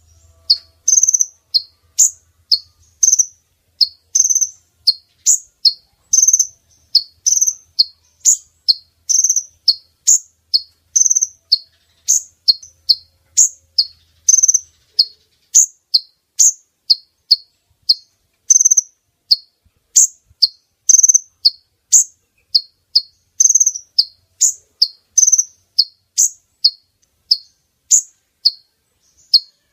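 Female brown-throated sunbird (kolibri ninja) call, played as a lure to draw males: short, sharp, high chirps repeated steadily about twice a second.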